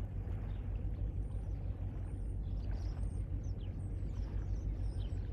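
Steady, uneven low rumble with no clear pitch, with faint short high chirps of birds from about a second in.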